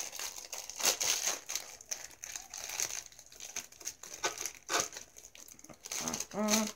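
Clear plastic bag crinkling in irregular crackles as it is handled and opened around a packaged hair piece.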